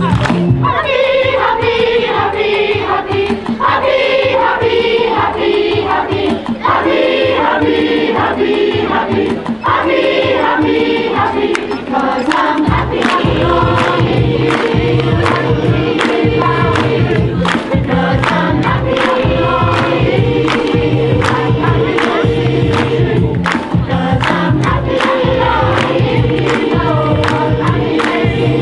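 Choir singing to an amplified backing with a regular beat; a strong bass line comes in about halfway through.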